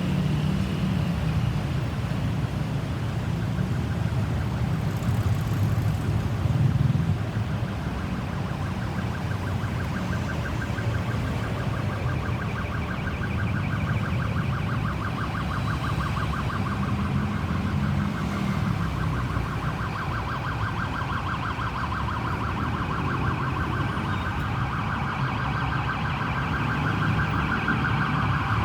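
Ambulance siren in a fast pulsing warble, faint at first and growing louder toward the end, over a steady low rumble of vehicles.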